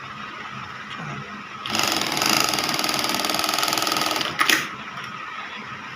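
Automatic lockstitch industrial sewing machine sewing at speed for about two and a half seconds, then stopping with a short sharp clack about four and a half seconds in, as the under-bed thread trimmer knife cuts the thread. The trimmer cuts cleanly, its knife cam timing now correctly set.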